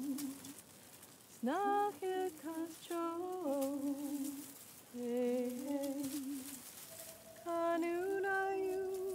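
A woman singing a slow melody in four long phrases, gliding between held notes, with short pauses between the phrases.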